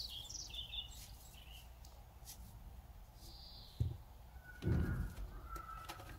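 Small birds chirping in the background, a burst of short calls in the first second or so and another faint one around three seconds in. A dull thump near four seconds and a louder low bump about a second later.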